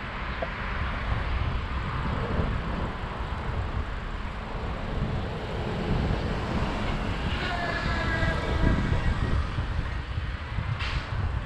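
Wind rumbling on the microphone of a riding cyclist's camera, with street traffic noise. About seven and a half seconds in, a pitched tone sounds for about a second and a half, and a short sharp sound comes near the end.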